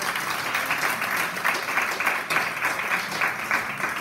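Small seated audience applauding: many hands clapping at once in a dense, even patter.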